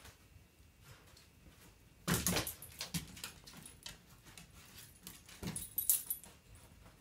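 A small dog jumps down from a bed onto a hardwood floor with a thump about two seconds in. Its claws tick on the wood as it sniffs around, then there is another thump near six seconds as it leaps back onto the bed.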